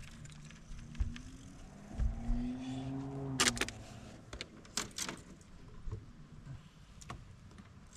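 A small electric motor whines for about three seconds, its pitch rising and then falling, followed by a few sharp knocks.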